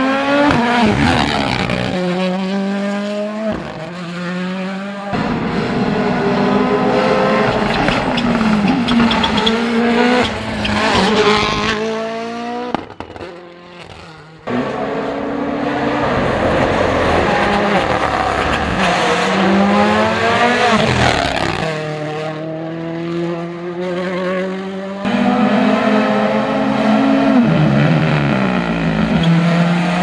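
Rally1 cars, a Ford Puma Rally1 among them, driven hard: their turbocharged four-cylinder engines climb in pitch through quick upshifts and drop back on braking. Several separate passes are cut together, with sudden changes between them.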